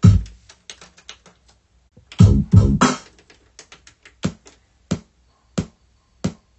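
Short sampled sounds triggered one at a time from the pads of an Akai MPC 2500 sampler: a burst of quick hits at the start, a louder cluster in the middle, then single short hits about two-thirds of a second apart toward the end.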